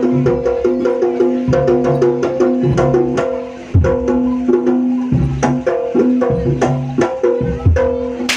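Live jaranan music: an East Javanese gamelan-style ensemble of drums and tuned percussion playing a fast, driving rhythm over held tones.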